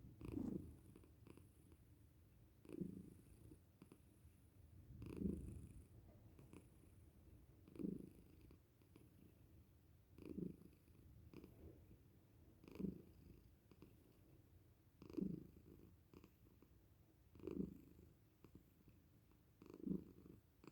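A domestic cat purring softly, the purr swelling louder with each breath about every two and a half seconds.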